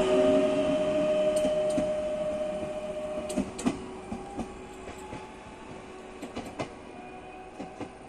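EN99 Acatus electric multiple unit pulling away: a steady electric whine and running noise that fade as it goes, the whine dying out about three seconds in. After that, a few short faint knocks over a low background hiss.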